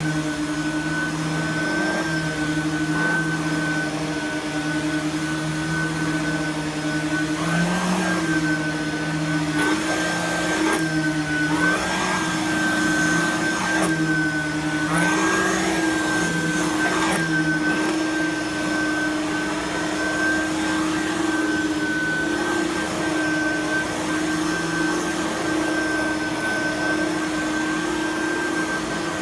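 Simplicity Freedom lightweight direct-air upright vacuum running steadily over carpet. Its motor pitch dips and wobbles briefly several times in the middle stretch as it is pushed and pulled.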